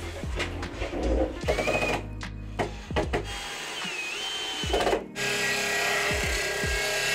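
DeWalt 18V XR brushless cordless drill driver whirring in short bursts that rise in pitch as it drives screws, with a few knocks of handling, then running steadily from about five seconds in.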